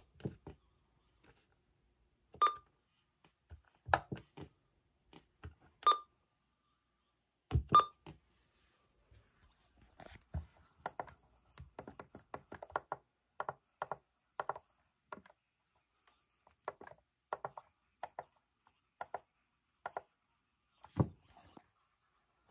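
Plastic buttons on weather radios clicking as they are pressed to set the clock. The three loudest presses, in the first eight seconds, each bring a short electronic beep. Later come quick runs of lighter clicks.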